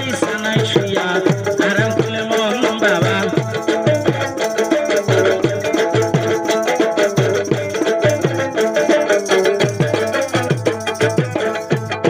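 Bengali folk music played live through a small amplifier, mostly instrumental: a stringed instrument carries the melody over a steady rhythm of low pitched drum strokes and a shaker.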